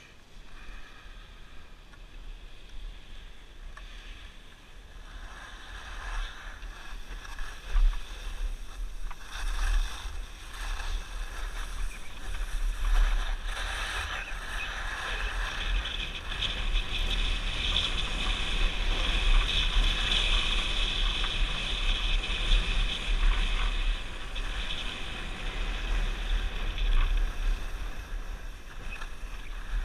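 Skis sliding and scraping over packed snow in a steady hiss, with wind buffeting the microphone in a low rumble. It grows louder from about five seconds in.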